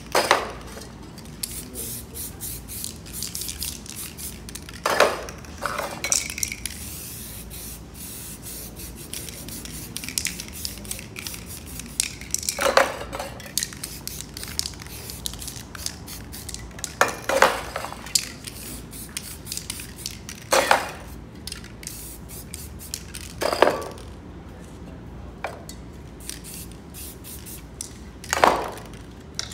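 Aerosol spray paint cans: short hissing sprays of paint, about eight loud ones spread several seconds apart, with metal cans clinking and knocking as they are taken from and put back among the other cans.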